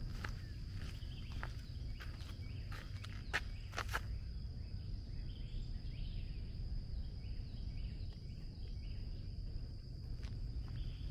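Footsteps crunching along a trail, about one every half second. They stop about four seconds in and start again near the end. A steady high-pitched insect drone runs underneath, with faint bird chirps while the steps pause.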